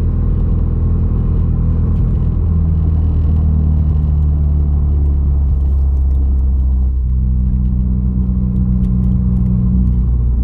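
Subaru WRX's turbocharged flat-four engine and road noise heard from inside the cabin while cruising: a steady low drone whose pitch shifts slightly twice.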